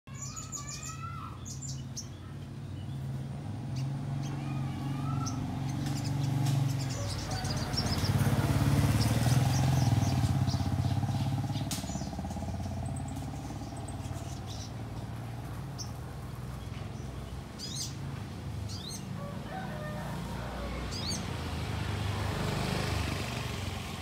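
Little spiderhunter (sogon) giving repeated short, sharp high chirps, with a few lower whistled notes near the start, as a calling bird challenging a rival. A low rumble of motor traffic runs underneath and swells to its loudest about a third of the way in.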